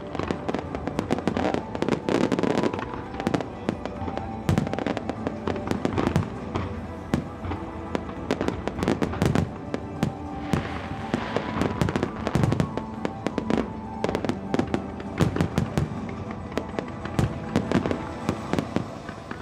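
Aerial fireworks display: shells bursting in rapid, irregular bangs and pops, with a spell of dense crackling about halfway through, and music playing underneath.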